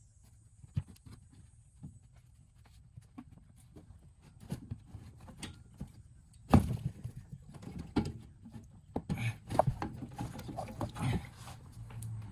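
Irregular knocks, clicks and clanks of hand tools and fittings being worked while heater coolant hoses are taken apart. One loud knock comes about halfway through, and the clatter grows busier near the end.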